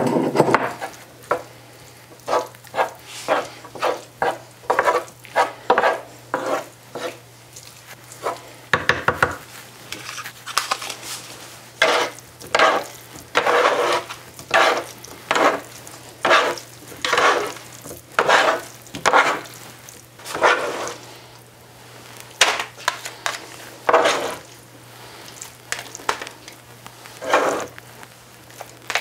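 Spatula stirring and scraping cauliflower through a thick sauce in a nonstick electric skillet, in short irregular strokes about one or two a second, over a low steady hum.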